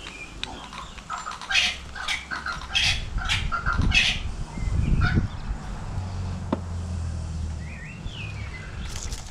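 Birds chirping in a quick series of short calls for the first few seconds, with another short call near the end. A low rumble runs under the middle.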